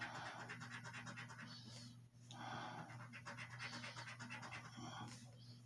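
A coin scraping the latex coating off a scratch-off lottery ticket in quick back-and-forth strokes. It comes in two spells with a brief pause about two seconds in.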